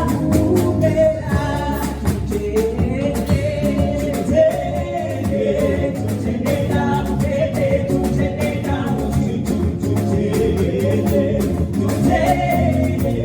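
Gospel praise-and-worship music: a praise team's voices singing over instruments with a steady beat.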